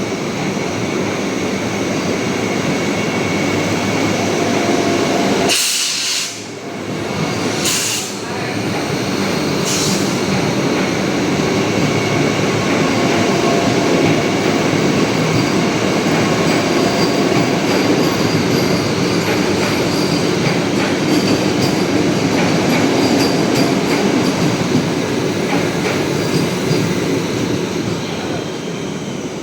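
Train running past on the rails with a steady, loud rumble of wheels and coaches and a faint high wheel squeal. There is a brief dip in the sound about six seconds in.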